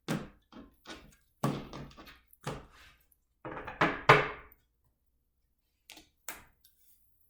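Tarot deck being shuffled and handled on a table: a series of irregular thunks and card-scuffling sounds, loudest a little after four seconds in, with a couple of lighter knocks near the end.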